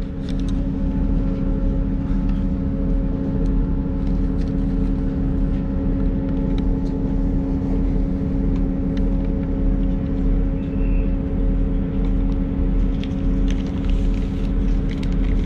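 Steady engine hum and low rumble of a train idling at a platform, heard from inside the carriage, with a few faint clicks.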